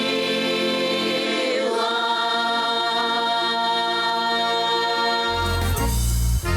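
Folk choir singing, holding long sustained chords, with the chord changing a couple of seconds in. A heavy low sound joins under the voices near the end.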